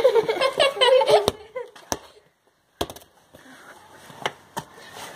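Children's voices shouting and laughing for about the first second and a half, then a few sharp knocks through the rest; the sound cuts out completely for under a second around two seconds in.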